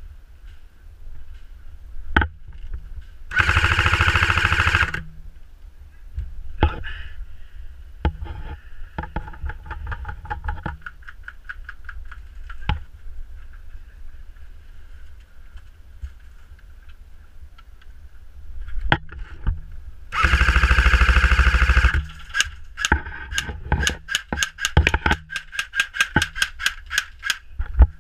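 Airsoft guns firing: two full-auto bursts of nearly two seconds each, with scattered single sharp cracks between them and a quick run of rapid single shots near the end.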